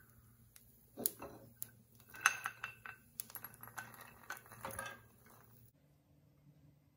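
A pan and cooking utensils knocking and clinking on a gas stove as the pan of roasted peanuts is lifted off the burner, with a sharp knock about a second in and a louder clank a little after two seconds.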